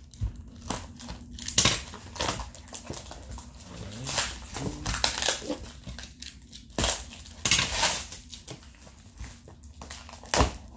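Cardboard shipping box and its packing tape being torn and pulled open by hand, in irregular bursts of tearing, crinkling and scraping.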